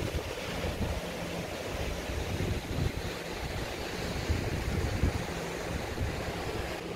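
Ocean surf washing and breaking over a rocky shore, a steady rushing wash, with wind buffeting the microphone in irregular low gusts.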